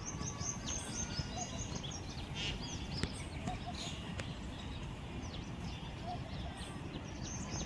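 Many small birds chirping in short, quick high notes, over a steady low rumble.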